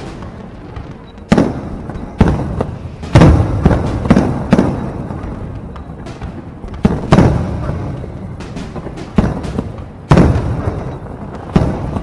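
Aerial fireworks shells bursting: about ten sharp booms at irregular intervals, each trailing off in a rumbling echo.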